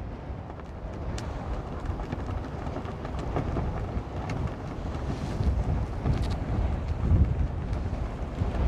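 Strong gusty wind buffeting the microphone: a rough, low rumble that swells and dips, with the strongest gusts about five and seven seconds in.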